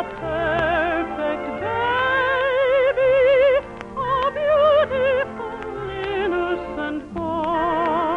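Operetta song: a singer holds and moves between long notes with wide vibrato, with an orchestra accompanying.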